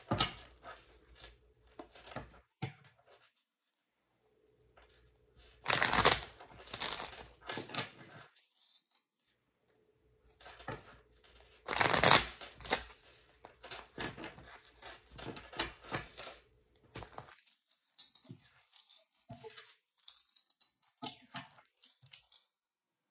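Tarot cards being shuffled and handled, a run of papery rustles and clicks with two louder bursts of shuffling about six and twelve seconds in.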